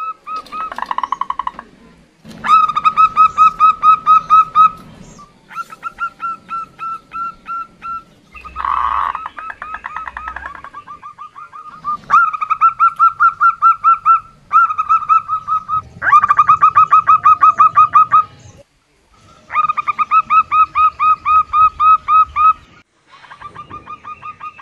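Female zebra dove (perkutut) giving rapid staccato calls in bouts of two to three seconds, about six clipped notes a second, with short pauses and a few softer, blurred rolls between bouts. It is the female's call, used to draw male zebra doves into calling.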